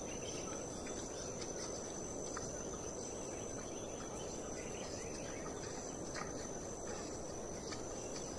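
Insect chorus making one steady, unbroken high-pitched tone over a faint even background hiss, with a few soft clicks.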